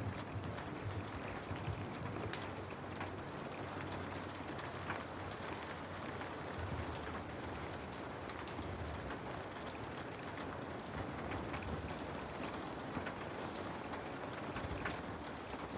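Steady rain pattering on a window, a dense even hiss full of small drop taps.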